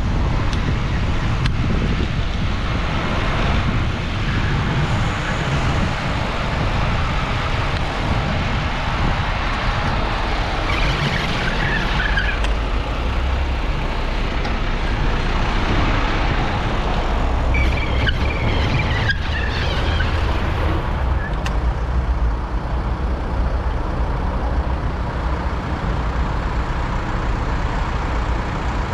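Street sound while riding a bicycle through city traffic: steady wind rumble on a microphone mounted low at the front fork, with tyre and road noise and passing motor traffic. A few brief high-pitched squeaks come near the middle.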